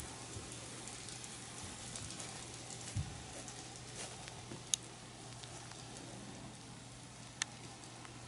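KATO N-gauge model train running on the track: a faint steady rolling hiss over a low hum, with three sharp clicks spread through it.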